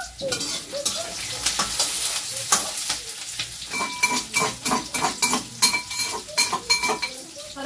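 Food sizzling as it fries in a pan, while a metal spatula stirs and scrapes against the pan with many quick clinks. About halfway through, the strokes turn into short repeated metallic rings.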